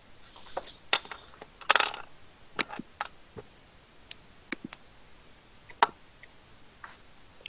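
Scattered sharp clicks and taps of a computer mouse and keyboard, a dozen or so spread irregularly, with a short hiss near the start and a louder noisy burst about two seconds in.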